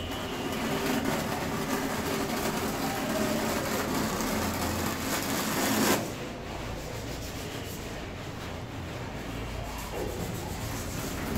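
Notched steel trowel scraping cement-based tile adhesive across a concrete wall, a continuous rasping rub of stroke after stroke. About halfway through it drops abruptly and carries on more quietly.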